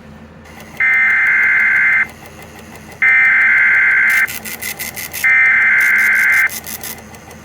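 Emergency Alert System SAME header data bursts, sent three times in a row, each a loud electronic warble about a second long with roughly a second of hiss between them. They encode a National Weather Service special marine warning and come just before the alert's attention tone.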